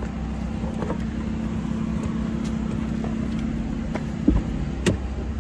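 Car engine idling with a steady hum, heard inside the cabin, while a car door is opened and someone climbs out. There are a couple of sharp knocks near the end.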